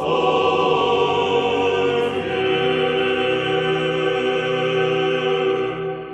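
Choral music holding long sustained chords, with a change of chord about two seconds in, then fading out near the end.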